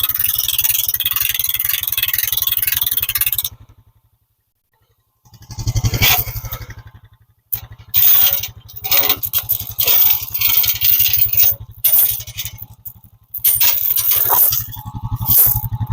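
A motor vehicle's engine running with loose metal rattling and scraping. The sound breaks off for about a second and a half near four seconds in, then returns with repeated metallic clanks and scrapes over the engine.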